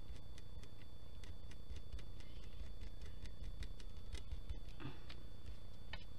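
Diamond-painting drill pen picking up and pressing rhinestone drills onto the sticky canvas: a run of light, irregular clicks, about two or three a second, over a faint steady high whine.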